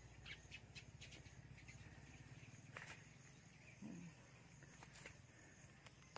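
Near silence: faint rural outdoor ambience with scattered faint chirps and clicks, and one brief faint call about four seconds in.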